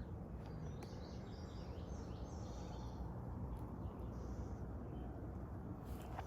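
Steady low outdoor noise with faint bird chirps, a few about a second or two in and another near the four-second mark.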